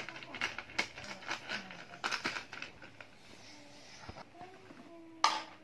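Light clicks and rattles of plastic toy pieces being handled, mostly in the first couple of seconds, with a brief louder burst near the end.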